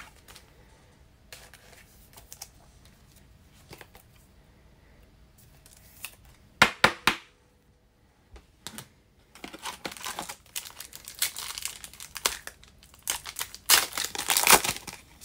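Foil trading-card pack wrapper crinkling as it is handled and torn open. There are two sharp crinkles about seven seconds in, then the crinkling grows steadily and is loudest near the end as the wrapper is torn.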